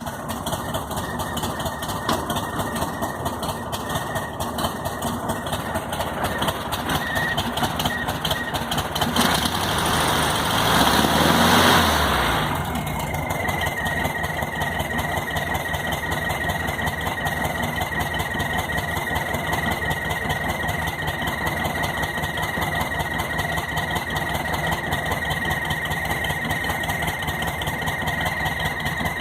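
Volkswagen Fusca (Beetle) air-cooled flat-four engine idling, briefly revved about a third of the way in. Back at idle, a steady high-pitched cricket-like whistle sounds over the engine: air sucked in past the base of a loose carburettor, a vacuum leak.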